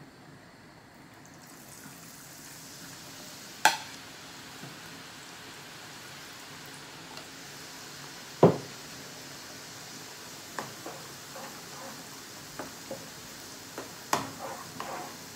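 Besan batter frying in hot oil in a small frying pan: a steady sizzle that builds from about a second and a half in. A sharp click early on and a loud knock about halfway break through it, and near the end a spoon stirring the boondi clicks and scrapes against the pan.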